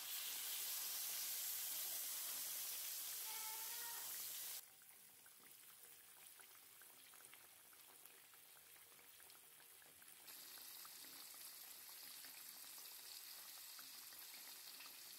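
Flour-dusted chicken pieces deep-frying in oil in a wok: a steady sizzle with small crackling pops. It is loud for the first four and a half seconds, drops suddenly, and comes up a little again about ten seconds in.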